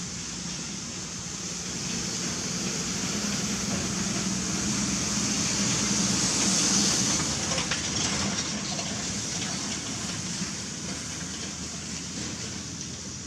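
Steady rumble and hiss, like a vehicle passing at a distance, swelling to its loudest about six or seven seconds in and slowly fading again.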